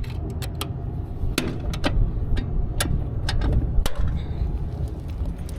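Irregular sharp clicks and knocks of hands handling metal panels and wiring on a rooftop HVAC unit, over a steady low rumble.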